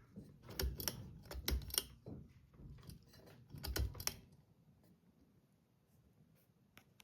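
A run of light metallic clicks and a few dull knocks for about four seconds, then they die away to faint ticks: the ceiling fan's pull-chain switch being tugged and its chain rattling while the fan is changed from low to medium speed.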